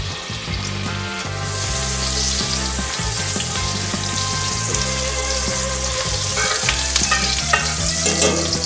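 Butter sizzling as it melts into hot cooking oil in a cast-iron skillet, pushed around with a slotted spatula. The sizzle swells about a second and a half in and then holds steady, the sign that the oil is hot enough for the French toast to go in.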